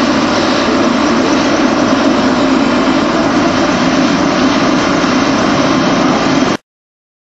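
Helicopter engine and rotor noise, loud and steady, cutting off abruptly near the end.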